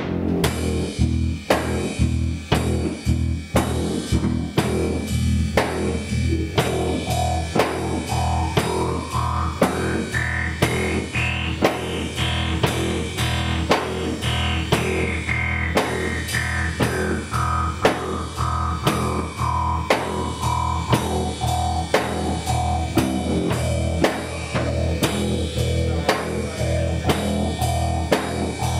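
Rock instrumental riff on drum kit and guitar with a steady, even beat. Through the middle a high line of pitch slowly rises and then falls back.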